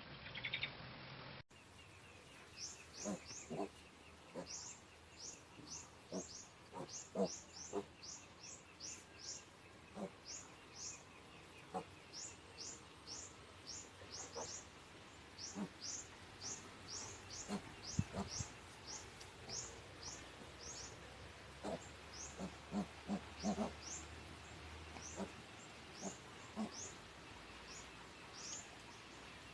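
Piglets grunting softly in short, scattered calls, with birds chirping quickly and repeatedly in the background. All faint.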